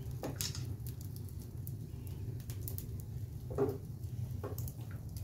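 Wood fire crackling in a fireplace: scattered sharp pops and snaps over a steady low hum, with one short falling squeak about three and a half seconds in.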